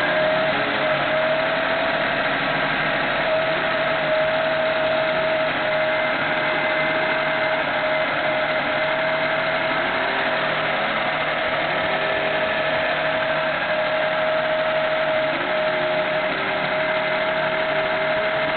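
1998 Honda Civic's four-cylinder engine idling steadily, with a steady whine over it; the owner reports the engine misfiring at random (codes P0300–P0304) when cold.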